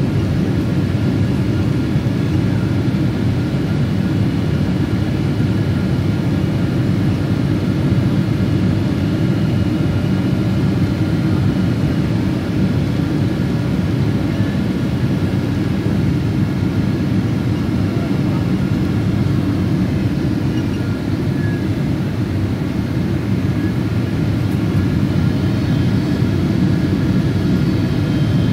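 Steady jet engine and airflow noise heard inside the cabin of a Boeing 777-200ER: a loud, even rumble with faint whining tones above it. Near the end, a few higher whining tones come in.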